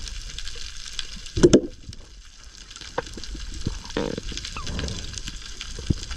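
Underwater crackle of a coral reef: a dense scatter of sharp clicks and crackling from snapping shrimp, with a louder thump about a second and a half in.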